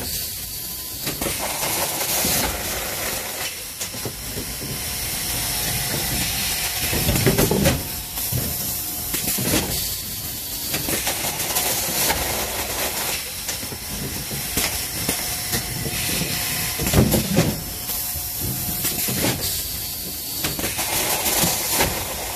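Combi 2EZXXL carton erector running automatically: pneumatic cylinders hiss as they exhaust air while a corrugated box is erected. A louder mechanical clatter comes about every nine to ten seconds as each forming cycle repeats.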